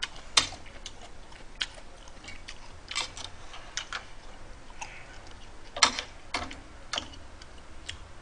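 Eating with metal chopsticks from a pot of seafood ramen with mussels and clams: irregular sharp clicks and taps of utensils and shells, loudest about half a second in and again just before six seconds.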